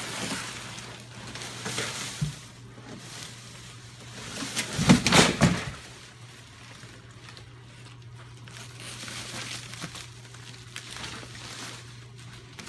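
Bubble wrap and plastic packaging rustling and crinkling as a wrapped motor unit is handled and lifted out of a cardboard box. About five seconds in there is a louder second of handling, with knocks, over a faint steady hum.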